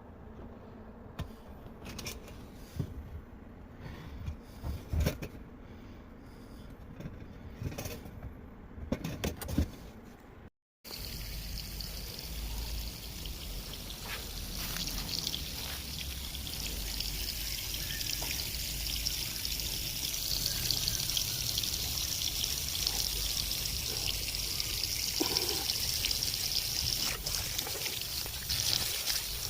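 A series of sharp knocks and clicks, then a cut, after which water runs and splashes steadily, slowly growing louder.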